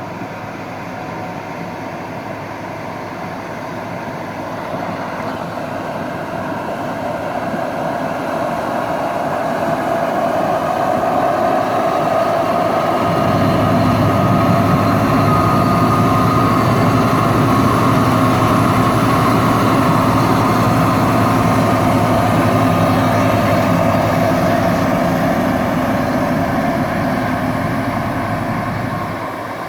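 Harvest machinery engine running steadily, from the grain-cart tractor or the combine, growing louder over the first half. A deeper engine note comes in about halfway through and stops abruptly near the end.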